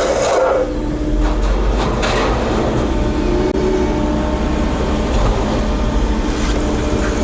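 Heavy construction machine's diesel engine running steadily with a low rumble and a faint steady whine over it.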